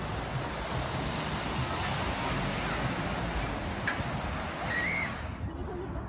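Steady rush of sea surf and wind, with a brief high chirp about five seconds in; the hiss drops away suddenly near the end.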